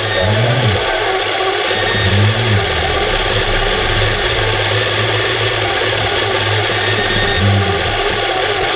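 Steady underwater rushing noise of a large pool, with a constant low hum beneath it. Three short low tones swell up and fall away: about half a second in, just after two seconds, and near the end.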